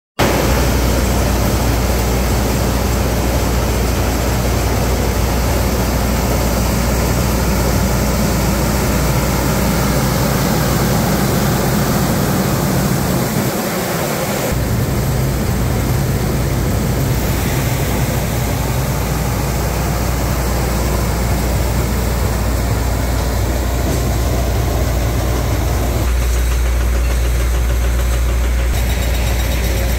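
ScreenPod S45RT trailer-mounted dust cannon running: a steady machine drone from its engine and spinning fan over a strong low hum. The tone shifts slightly about halfway through and again near the end.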